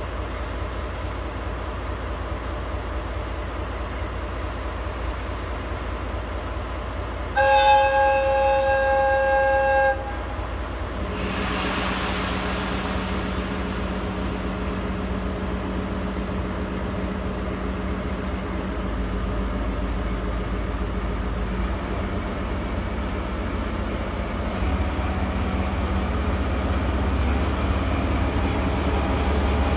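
A JNR DE10 diesel-hydraulic locomotive's engine runs steadily, then its air horn sounds one long blast of about two and a half seconds. Soon after comes a burst of air hiss, and the engine note rises and keeps building as the locomotive starts off with its train.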